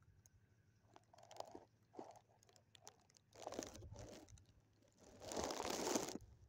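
Irregular crunching and rustling of footsteps in dry leaf litter, with a longer, louder rustle about five seconds in.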